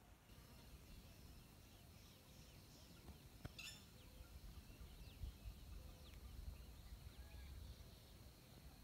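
Faint bird chirps and short calls, scattered and overlapping, over a soft low rumble, with a single sharp click about three and a half seconds in.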